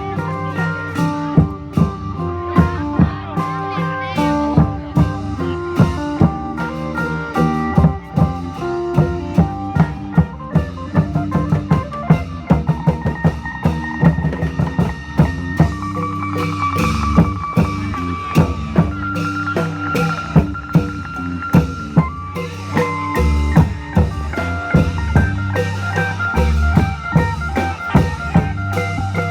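Isan klong yao long-drum band music: a phin lute picks a melody over a steady, driving beat of long drums and percussion.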